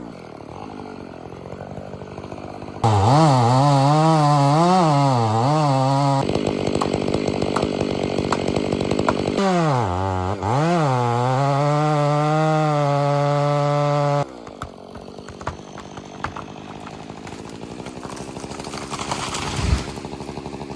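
Stihl 500i fuel-injected two-stroke chainsaw with a 32-inch bar and full-skip chain, bucking in a big fir: it idles, then runs at full throttle in the cut in two long stretches, its pitch wavering under load, with a noisier stretch between them. It drops back to idle for the last several seconds, and a single sharp crack comes near the end.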